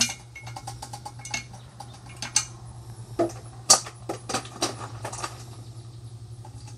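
Dry ice pellets clinking and rattling as they are scooped from a cooler and poured into a tall graduated cylinder. The sharp clicks come at irregular intervals, the loudest about three and a half seconds in, over a steady low hum.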